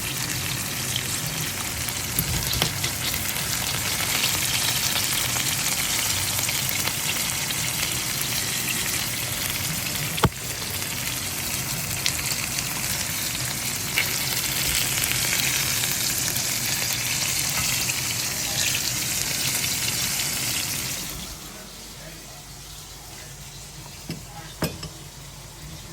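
Food sizzling in a frying pan, a steady hiss with a few sharp clicks and knocks. About 21 seconds in the sizzle drops away to a much quieter background, and a couple of knocks follow near the end.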